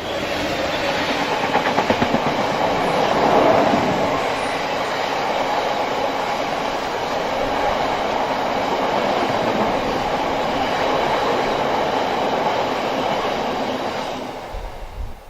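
Freight train hauled by GBRf Class 66 locomotive 66775 rolling past at speed, its wagon wheels clattering steadily over the rail joints. The noise fades away near the end.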